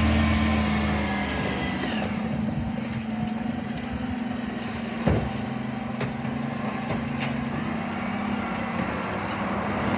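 Dennis split-body bin lorry's diesel engine easing off as the lorry draws to a stop, then idling steadily. A brief hiss and a sharp knock come about five seconds in.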